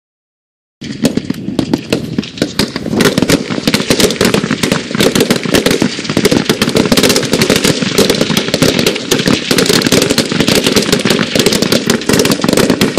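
Rapid, overlapping rifle shots from many rifles firing at once along a firing line, a continuous crackle of cracks that starts suddenly about a second in.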